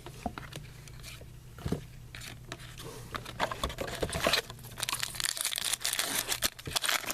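Hockey card pack wrapper being torn open and crinkled, with scattered crackles that thicken into dense crinkling about three seconds in.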